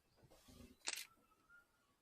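Camera shutter firing, a sharp double click just before a second in, against a very quiet forest background with a faint high bird note.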